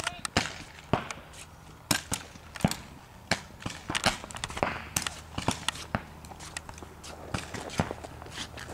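Paintball markers firing: sharp pops at an irregular pace, about one or two a second, some louder and closer than others.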